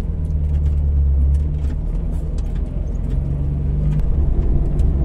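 Toyota Lite Ace van's engine running with a steady low rumble, with a few light clicks and rattles over it.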